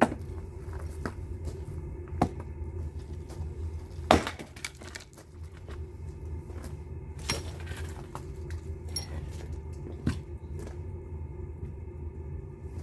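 Firewood being worked: sharp, separate wooden knocks and cracks every two to three seconds over a steady low hum.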